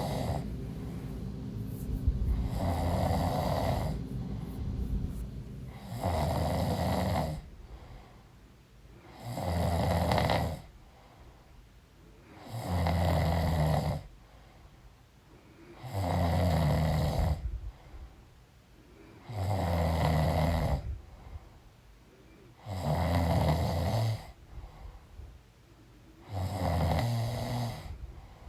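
A woman snoring in her sleep, with a regular, low-pitched snore every three to three and a half seconds. Each snore lasts about a second and a half, with quiet breaths between.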